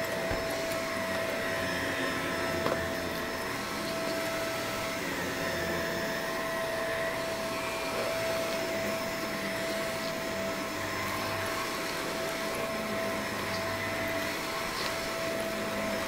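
Bissell MultiClean upright vacuum running steadily as it is pushed across carpet and a rug, with a constant motor whine over the rush of suction. A single short click a little under three seconds in.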